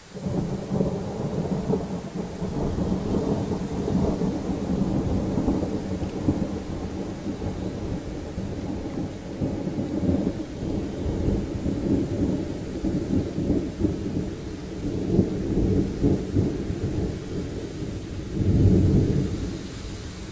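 Long rolling thunder rumble that starts suddenly and keeps going, deep and uneven, swelling several times with the loudest surge near the end.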